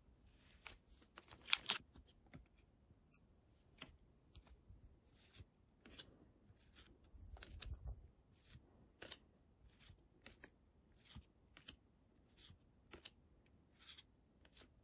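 Pokémon trading cards sliding against one another as they are flipped one at a time from the back of a handheld stack to the front: a soft swish roughly every half second to second, with a louder rustle about one and a half seconds in.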